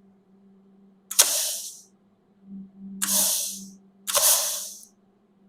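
Plasma cutter torch fired in short bursts: three times, a sharp click and a hissing blast of air lasting under a second, with a faint steady hum between. The torch keeps cutting out: the power is tripping, which the owner traces to a miswired supply.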